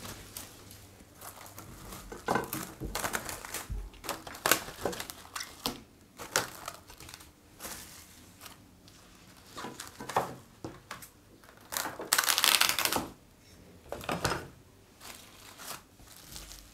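Plastic cling film being pulled from its roll, stretched and pressed over a glass dish, crinkling and crackling in irregular bursts, with a longer, louder stretch of crackling about twelve seconds in.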